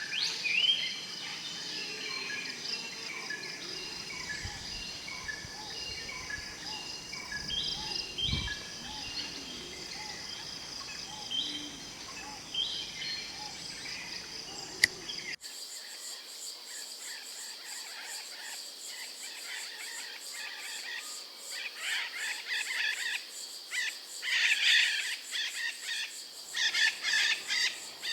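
Birds chirping, short repeated calls over a steady high drone of insects. About halfway there is a cut to a different recording of rapid, trilling high bird calls that grow louder near the end.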